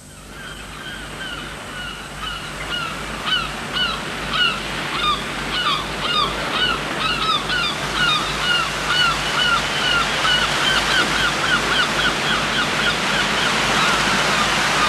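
A flock of birds calling: many short, hooked calls repeating a few times a second, over a steady background hiss, fading in and growing louder throughout.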